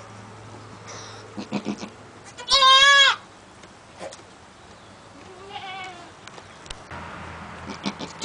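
A newborn Cashmere goat kid bleats once, loud and high-pitched, about two and a half seconds in. A fainter, lower goat call follows a few seconds later, with a few soft rustles in the straw before the first bleat.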